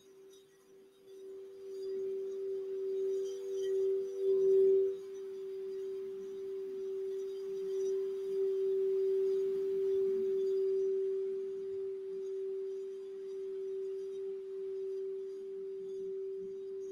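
Crystal Alchemy crystal singing bowl tuned for the throat chakra, sung by rubbing a wand around its rim. A single pure tone builds up about a second in and swells for the first few seconds, with a fainter higher overtone. It then rings on steadily.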